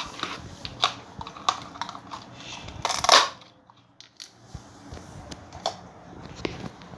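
Plastic toy kitchen pieces clicking and knocking against each other as they are picked up and handled, with a louder short rasp about three seconds in.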